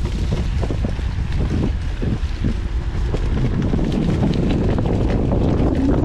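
Wind buffeting the action camera's microphone as a heavy, steady low rumble. Through it come scattered clicks and rattles from a mountain bike riding over rough trail.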